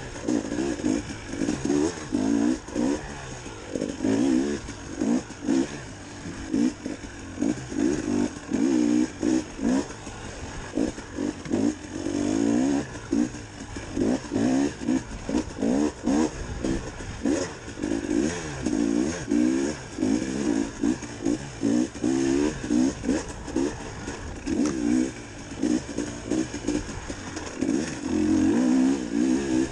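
2019 KTM 300XC-W TPI's two-stroke engine revving up and down over and over as the throttle is opened and closed, each burst rising in pitch and then dropping away.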